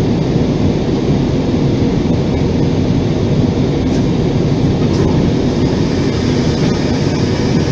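Steady cabin noise of a jet airliner in flight: engine and airflow noise, heaviest in the low range, with a couple of faint ticks about four and five seconds in.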